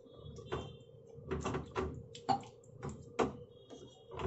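Wooden spatula scraping and knocking against a non-stick frying pan as it stirs a watery tomato-onion gravy, in a run of short, irregular strokes.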